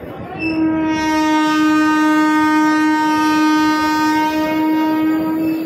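A train horn sounds one long, steady blast that starts about half a second in and lasts about five seconds, over the rumble of tank wagons rolling past.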